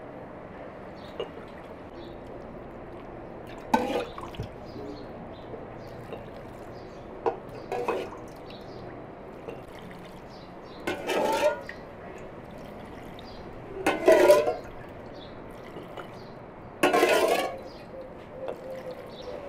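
Brine of salted water and grape vinegar scooped from a basin with a drinking glass and poured over green peppers in a large glass jar: about five short splashing pours a few seconds apart.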